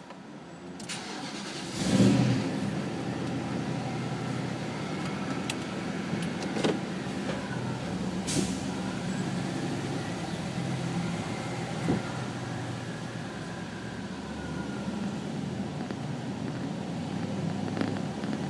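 Nissan Titan pickup's V8 engine starting about two seconds in, then running steadily, with a few scattered sharp clicks.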